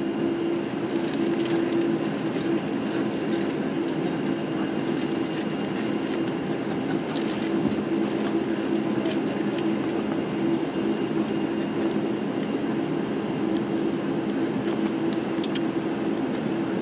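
Cabin noise of a Boeing 747-8i taxiing: the steady hum of its GEnx engines at low thrust heard through the fuselage, with a few faint clicks and rattles as the airliner rolls over the pavement.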